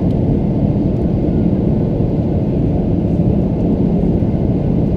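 Steady, muffled cabin rumble of a Boeing 737-800's engines and airflow, even in level with nothing standing out.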